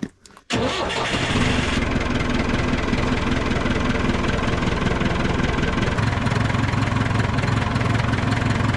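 Backhoe loader's diesel engine running steadily at idle, coming in abruptly about half a second in.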